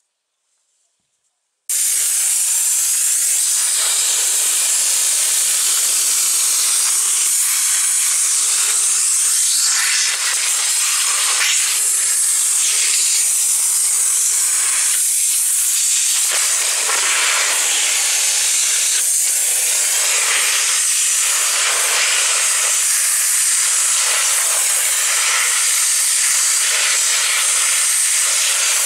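High-pressure washer jet spraying at close range into a cardboard juice carton, cutting it apart: a loud, steady hiss that starts suddenly about two seconds in.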